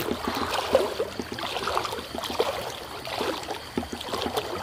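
A person wading through river water, legs splashing and sloshing in quick, irregular strokes.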